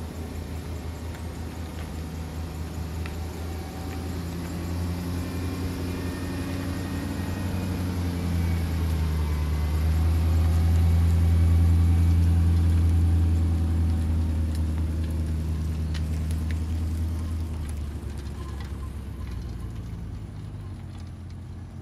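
Car engine running as it tows the loaded boat trailer: a steady low hum that grows louder toward the middle and then slowly eases off.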